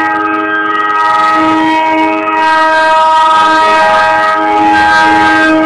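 A metre-gauge locomotive's air horn held in one long, loud blast, several tones sounding together, as a warning while the train approaches the level crossing.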